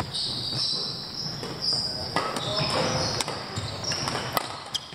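Badminton players' shoes squeaking on a wooden sports hall floor in short high squeals, with a few sharp clicks of rackets striking the shuttlecock.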